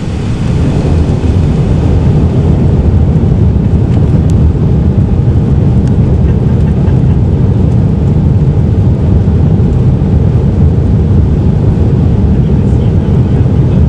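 Steady low rumble of engine and airflow noise inside the cabin of an Airbus A380 on final approach. It grows louder about a second in, then holds level.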